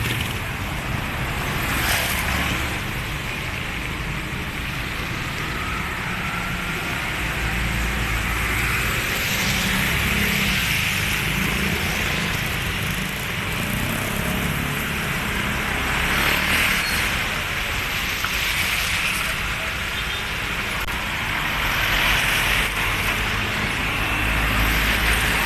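Steady road traffic on a wet street: car engines running and tyres passing, one rumbling into the next.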